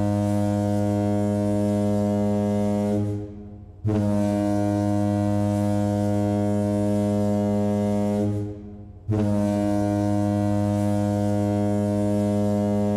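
A ship's horn sounding one low, steady note in long blasts. The first fades about three seconds in, the next starts about a second later and lasts some four seconds, and a third starts about nine seconds in.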